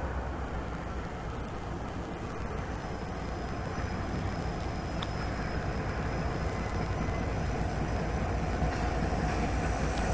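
Santa Fe diesel freight locomotives, led by GP60M No. 161, approaching on curved track: a steady low engine rumble that grows gradually louder as they near.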